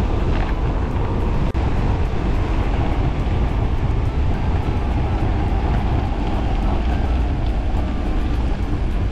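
Wind rushing over an action camera's microphone as a bicycle descends a road at speed, a loud, steady buffeting roar with a brief dropout about a second and a half in.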